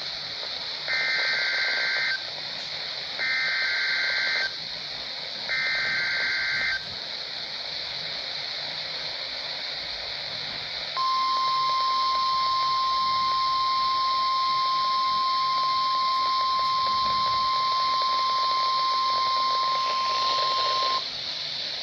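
NOAA Weather Radio Emergency Alert System test coming through a Midland HH54VP weather radio's speaker: three short bursts of SAME digital header tones, then a few seconds of hiss, then a steady 1050 Hz alarm tone lasting about ten seconds. The header bursts and alarm tone open a Required Weekly Test alert.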